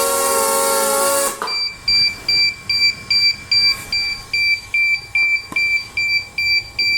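Quadcopter drone's motors and propellers whirring steadily, sagging and then cutting out about a second and a half in. A rapid high-pitched warning beep follows, about three beeps a second, signalling an "aircraft has rolled over" error.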